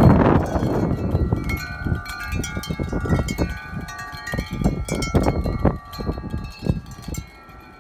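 Wind chimes ringing in high wind, many tones struck again and again and overlapping. Wind gusts buffet the microphone with a low rumble, heaviest at the start and easing off toward the end.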